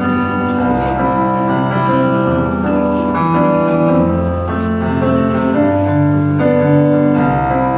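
Live song accompaniment playing an instrumental passage between sung lines: held chords that change every second or two over a steady bass line, with no singing.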